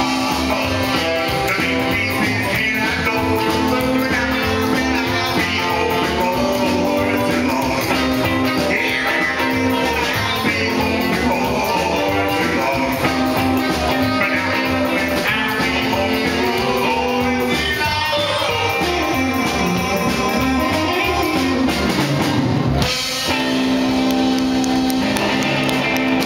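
Live rockabilly band playing: a man singing over electric guitar, saxophone and upright bass. About three-quarters of the way through, a long slide down in pitch and back up, then a brief break before the full band comes back in.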